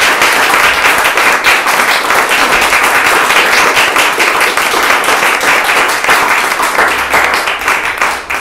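Small audience applauding, a dense, steady patter of many hands clapping that starts to die away at the very end.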